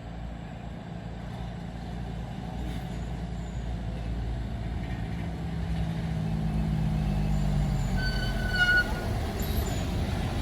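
UD Quester truck's diesel engine pulling hard up a steep climb, steadily growing louder with its note rising slightly. A brief high whistle sounds about eight seconds in.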